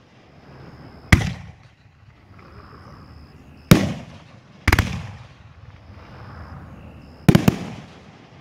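A 9-shot, 3-inch, 500-gram consumer fireworks cake firing: loud sharp bangs with echoing tails about a second in, twice about a second apart near the middle, and a quick double bang near the end.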